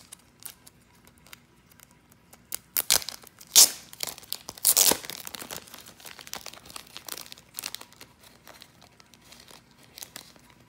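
Clear plastic packaging crinkling and rustling as it is handled and pulled open, with a run of loud rips and crackles between about three and five seconds in.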